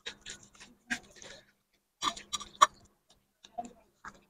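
Eating sounds: quiet, irregular clicks and smacks of chewing and handling food, in small clusters about a second apart.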